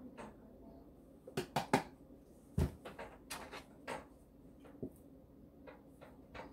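Cardboard pancake-mix box being handled: a scatter of light taps and knocks, with one duller thump about two and a half seconds in.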